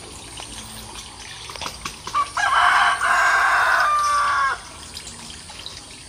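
A rooster crowing once: a harsh call of about two seconds, starting about two seconds in and ending on a held, slightly falling note.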